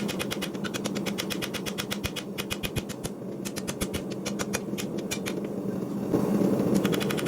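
Mechanical power hammer striking hot steel rapidly, about eight to ten blows a second, over a steady hum; the strikes thin out briefly in the middle and grow stronger again near the end.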